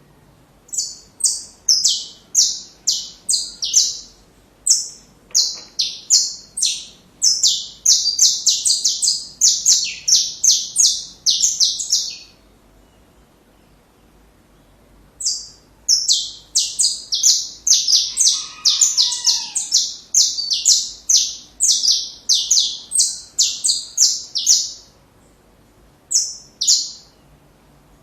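Saffron finch (canário-da-terra) singing: two long phrases of rapid, repeated, high falling notes, each lasting about ten seconds with a pause of about three seconds between them, then a brief short burst near the end.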